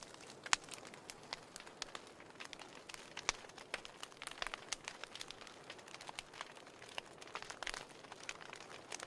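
Fire crackling in a fireplace: irregular sharp pops and snaps, several a second, over a soft steady hiss of burning.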